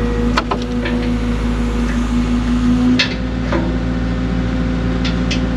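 Excavator's diesel engine running steadily, with sharp clanks of the work: one about half a second in, one about three seconds in where the engine note shifts, and two close together near the end.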